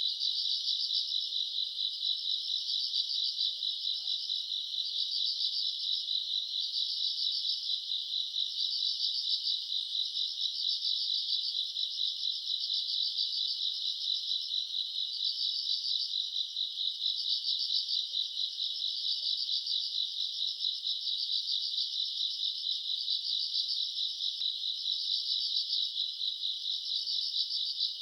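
A dense, continuous chorus of night-singing crickets and other insects, a steady high-pitched trilling that swells and fades slightly every second or so.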